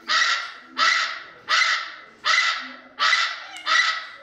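A parrot screeching over and over, a harsh, loud call repeated about every 0.7 seconds, each one starting sharply and fading away.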